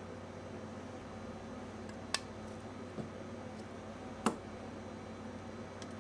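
Food-preparation sounds: three short, sharp knocks, about two, three and four seconds in, the last the loudest, over a steady low hum.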